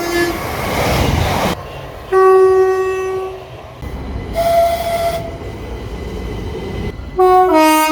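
Train horn blasts over train rumble: a long low steady note, a shorter higher note, and near the end a two-tone blast stepping from a higher to a lower pitch. A loud rush of noise comes in the first second or so.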